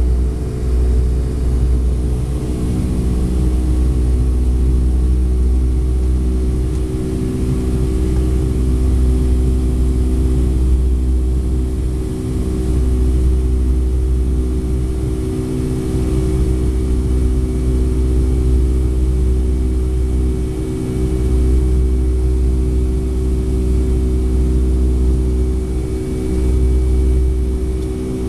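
Boeing 757-200's jet engines at climb power, heard inside the cabin: a steady, loud low rumble with a steady hum above it and a rush of airflow noise. The rumble dips briefly a few times.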